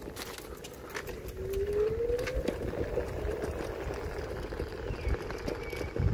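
Electric scooter's motor whining with a steady tone that rises in pitch about two seconds in as it speeds up, over the rumble and knocks of its small wheels on brick paving.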